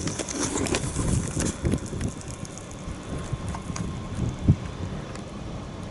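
Wind rumbling on the microphone, with scattered crunches and knocks of footsteps over broken brick rubble and one sharper thump about four and a half seconds in.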